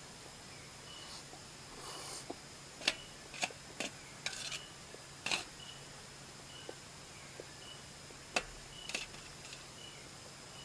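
Metal utensils knocking sharply against a bowl or pot, about half a dozen clicks over several seconds, the loudest a little after halfway. A faint short high chirp repeats about once a second in the background.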